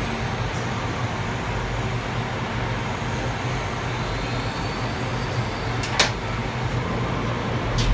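Walter Woodtronic CNC5 circular saw blade grinding machine running with a steady mechanical hum, one sharp click about six seconds in and another at the end, where a deeper hum comes up.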